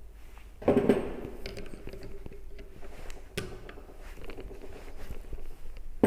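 Handling noise of a small DC motor being dismantled: knocks, scrapes and sharp metallic clicks as its metal yoke and hand tools are moved on a wooden workbench, with the loudest knock about a second in and single clicks near the middle and at the end.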